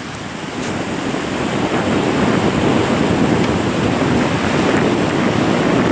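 Ocean surf washing ashore, with wind buffeting the microphone; the wash builds a little over the first couple of seconds.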